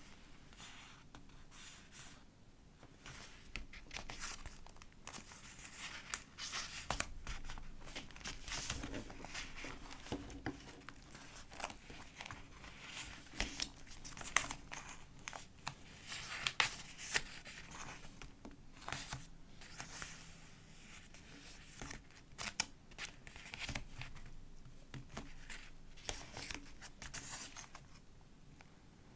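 Pages of a collage-style paper journal being turned and handled: paper rustling with irregular crisp snaps and flaps.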